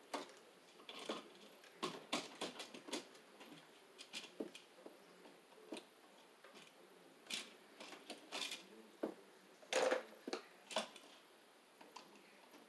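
Hand tools working wires and a receptacle in an electrical outlet box: pliers and wire clicking, tapping and scraping against the box, irregular, with a cluster of louder clicks about ten seconds in.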